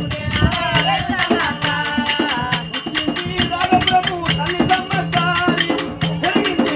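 Oggu katha folk music accompaniment: a fast, even percussion beat of about five strokes a second under a wavering melody line and a low held note.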